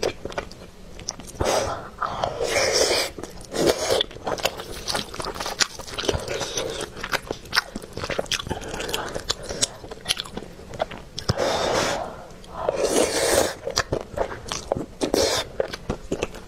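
Close-miked eating of saucy rice with peanuts and vermicelli: wet chewing with many quick mouth clicks and smacks, broken several times by short slurps from the spoon.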